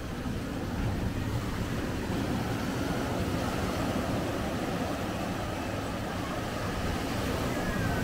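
Sea waves washing on the shore with wind on the microphone: a steady rushing noise, heaviest in the low end.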